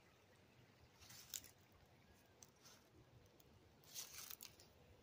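Faint crunching rustle of footsteps in fallen leaves, in two short bouts: about a second in and again about four seconds in.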